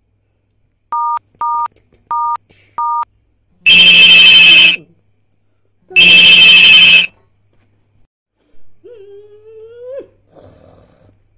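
Four short two-tone keypad beeps of a mobile phone being dialled, then two loud bursts of a telephone ringing, each about a second long. Near the end comes a short rising hum of a man's voice.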